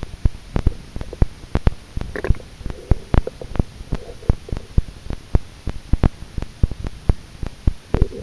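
Irregular sharp clicks and knocks heard underwater, several a second, with a few faint short tones in between.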